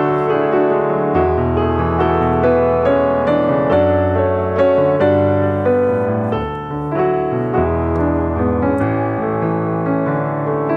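Background piano music: sustained chords over a bass line that changes every second or two.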